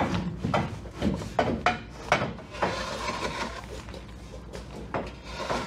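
Irregular knocks, clanks and scrapes of a curved metal bulwark corner piece being shifted and pressed into position by hand, over a steady low hum.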